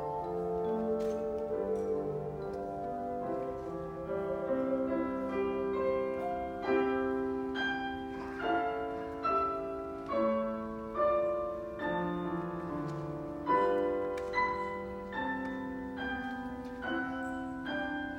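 Theremin and tone chimes playing a slow melody together: a wavering, vibrato-laden theremin line over struck chime notes that ring and fade, one every second or so.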